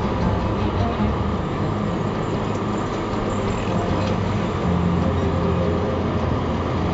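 Steady engine and road noise of a car driving through town traffic, heard from inside the car.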